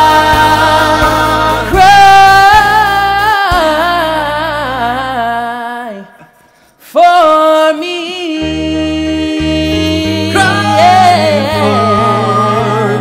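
Several men's voices singing sustained close harmony over a low bass line. The music falls almost silent about six seconds in, then the voices come back in on held chords.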